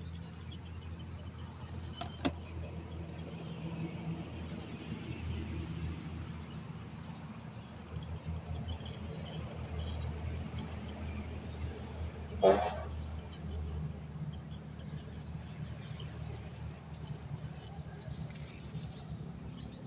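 Steady insect chirring with scattered small chirps over a low background hum, a sharp click about two seconds in, and a brief louder sound about twelve and a half seconds in.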